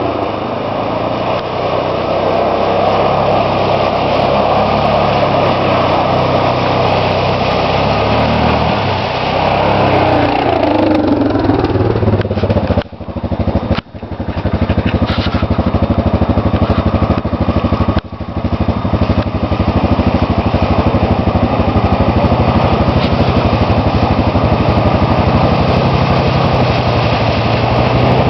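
ATV engines running and revving as quads ride through flooded mud holes, with the engine noise continuous apart from a few brief drops about halfway through.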